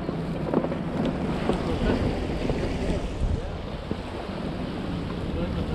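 Wind buffeting the microphone over a steady wash of ocean waves.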